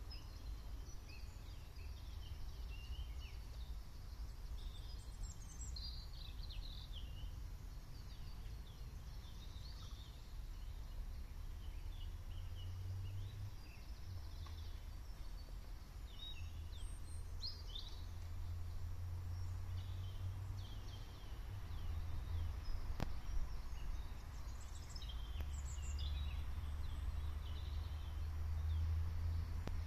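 Birds calling in woodland: scattered short chirps and calls, over a low rumble that swells at times. A single faint tick about two thirds of the way through.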